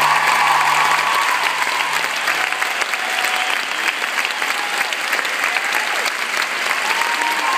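A large audience applauding, dense and steady. A held low note from the ending music fades out about two and a half seconds in.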